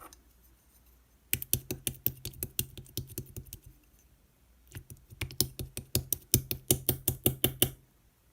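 Rapid sharp clicks in two runs of two to three seconds each, about five a second, with a low hum underneath while they last.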